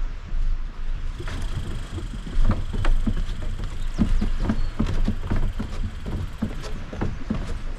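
Footsteps thudding down wooden stairs, about two to three steps a second from about two seconds in, as a person carries a plastic kayak down them.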